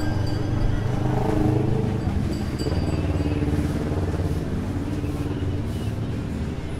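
A motor vehicle's engine running close by in the street, loudest about a second and a half in, then easing slightly.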